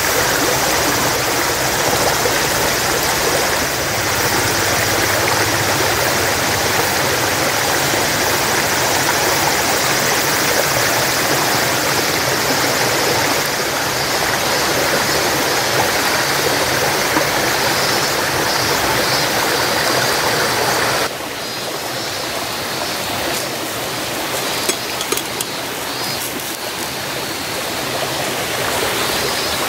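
A stream running with a steady, even rush of water. About two-thirds of the way through it drops suddenly to a quieter level, and a few faint clicks follow.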